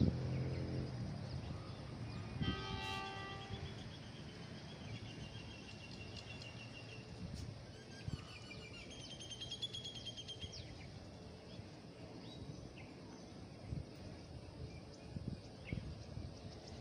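Quiet outdoor ambience with birds calling: a short call about two and a half seconds in, then warbling birdsong twice. A low hum fades out in the first second.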